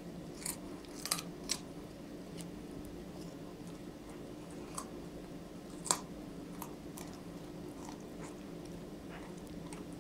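Wolf pup gnawing on a raw carrot: scattered, irregular sharp crunches as its teeth bite through, the loudest about six seconds in, over a low steady hum.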